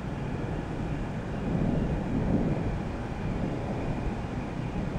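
Continuous low rumble of thunder from a lightning storm, swelling louder about two seconds in.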